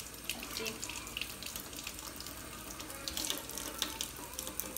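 Thin stream of tap water running into a stainless steel sink and over a plastic ice-pop mould, with a few light clicks. The water is thawing one frozen ice pop so it can be pulled from the mould.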